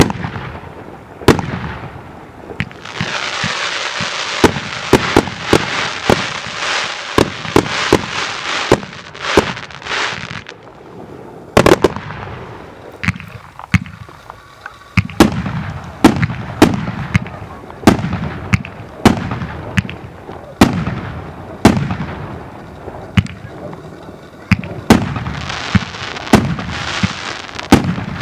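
Korolevsky fireworks cake (multi-shot battery) firing: a rapid series of sharp bangs, with long stretches of dense crackling about three to ten seconds in and again near the end.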